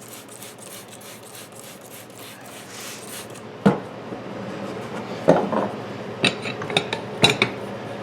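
Soap being rubbed onto a lawn tractor tire bead for about three seconds, then sharp metal clanks of a tire spoon and rod against the steel wheel rim, four or five of them about a second apart, as the bead is worked off the rim.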